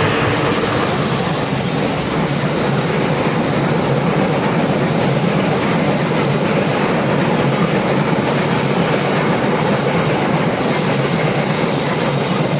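Passenger coaches of a diesel-hauled train rolling past close by, a steady loud rumble and clatter of wheels on the rails. A faint high wheel squeal on the curve sounds in the first few seconds.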